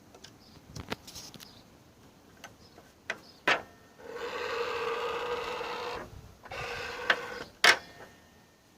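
A mitre saw being handled: sharp clicks and knocks, and two stretches of a steady mechanical rubbing sound with an even pitch, the first about two seconds long, the second shorter and ending in a knock.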